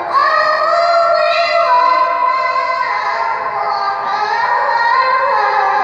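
Teenage qoriah's Quran recitation (tilawah), sung solo and amplified through a handheld microphone in a high register. Long held, ornamented notes step between pitches, leaping up at the start and gliding down several times.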